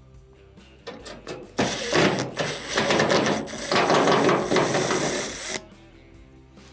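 A power screwdriver running as it backs screws out of a dryer's sheet-metal front panel: a few clicks, then one continuous mechanical whirr of about four seconds that stops suddenly.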